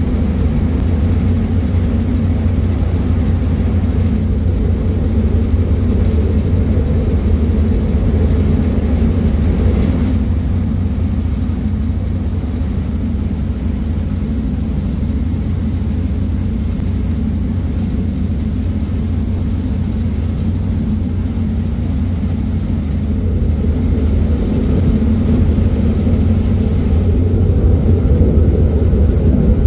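Ferry's engines running at cruising speed, a steady low drone, with the rush of the churning wake behind the vessel.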